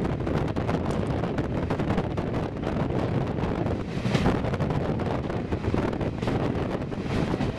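Wind buffeting the microphone in gusts, over a steady low rumble.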